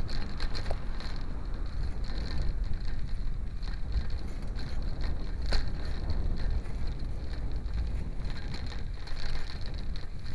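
Steady low rumble and wind buffeting on the microphone of a moving ride, with a faint high whine throughout and two sharp clicks, one near the start and one about halfway.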